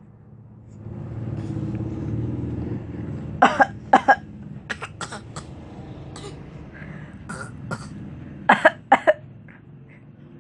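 Short coughs in quick groups: two or three about three and a half seconds in, a few fainter ones after, and another run of three near the end, from a baby copying coughing. Under them a low rumble swells and fades in the first few seconds.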